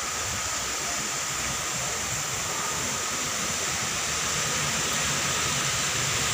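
Steady rushing of a waterfall, an even hiss without pauses, growing slightly louder toward the end.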